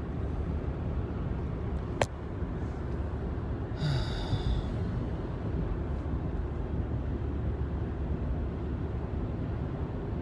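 Steady low road and engine rumble inside a moving car's cabin, with a sharp click about two seconds in and a brief hiss around four seconds.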